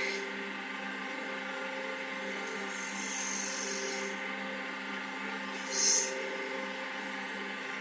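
WS-L1550 mini wood lathe running steadily with a high motor whine, while a turning tool cuts the spinning workpiece in short hissing passes. The loudest cut comes about six seconds in.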